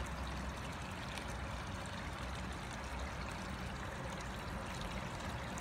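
Oase PondoVac Classic pond vacuum running steadily, a low motor hum under water flowing through it as it sucks debris off the pond bottom.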